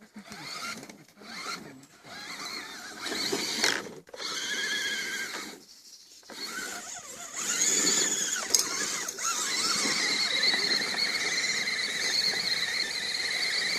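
Radio-controlled rock crawler's electric motor and gear drivetrain whining under load as it works over the course, fitful at first, then a steady high whine from about halfway through, with one sharp click.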